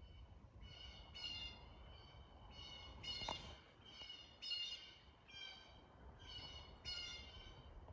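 Birds giving a string of short, harsh calls, about one a second. A sharp click sounds about three seconds in.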